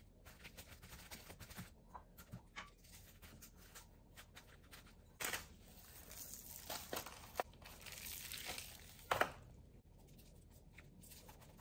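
Faint rustling and crinkling of parchment paper on a sheet pan as hands sprinkle and rub dry spice rub into racks of raw ribs, with scattered small clicks and a couple of louder rustles about five and nine seconds in.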